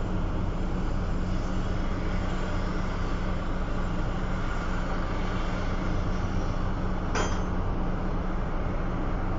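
Large diesel engine running steadily at a constant speed, with a short sharp click or squeak about seven seconds in.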